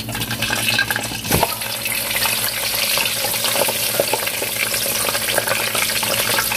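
Boiled, pressed plantain slice deep-frying in hot oil in an electric deep fryer's wire basket: a dense, steady crackling sizzle of bubbling oil. A single knock sounds about a second and a half in.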